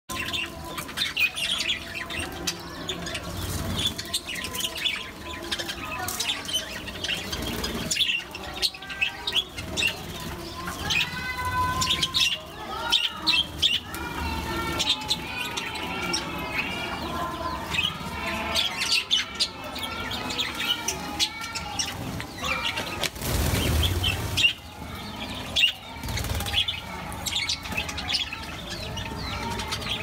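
A flock of budgerigars chirping and warbling, many calls overlapping, with wings flapping now and then. A short, louder burst of noise comes about three quarters of the way through.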